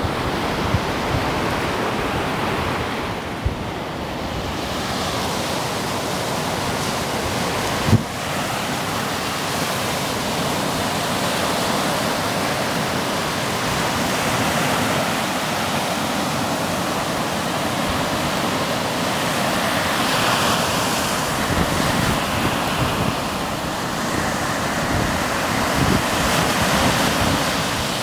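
Baltic Sea surf washing onto a sandy beach, a steady rush of breaking waves, with wind buffeting the microphone. A single short knock about eight seconds in.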